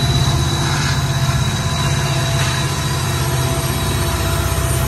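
Union Pacific SD70ACE locomotive working as a mid-train distributed power unit (DPU), its two-stroke V16 diesel running with a steady low rumble as it rolls past along with tank cars. A faint steady high whine sits over the rumble.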